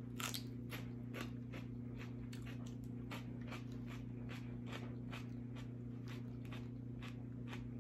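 Raw celery being chewed: crisp crunches, about three a second, over a steady low electrical hum.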